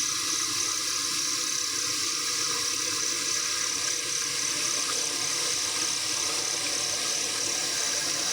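Steady night insect chorus, a continuous high trill with a faint pulse, over a low steady hum.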